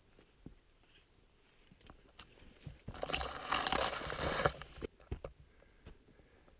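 Soft footsteps and small clicks on a forest trail. About three seconds in, a dense rustling noise lasts about two seconds and stops abruptly as the handheld camera is swung round through the ferns.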